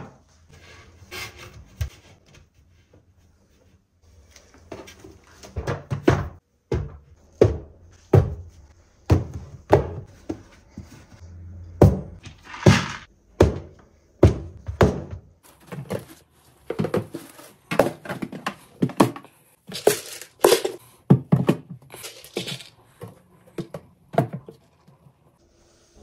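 Plastic dry-food storage containers being handled and set down on a cupboard shelf: a long, irregular run of knocks and clicks that thickens about five seconds in.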